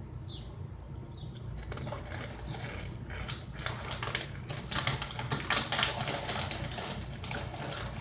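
Chewing a crunchy Fritos chili cheese corn chip: a dense run of crackly crunches that starts about a second and a half in and is loudest a little past the middle.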